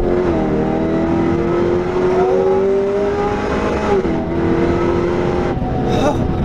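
Supercharged LS3 V8 of a Chevy SS (Holden Commodore) at hard acceleration, heard from inside the cabin. The engine note climbs steadily and drops abruptly twice as the automatic gearbox upshifts, once just after the start and again about four seconds in, then eases off near the end.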